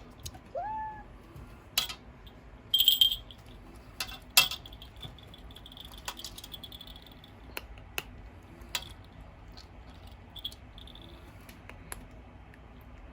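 A pet crunching dry kibble from a bowl: irregular sharp crunches with a ringing clink against the bowl about three seconds in, the busiest stretch between two and five seconds. A short rising squeak-like call comes about half a second in, over the steady hum of a ventilation fan.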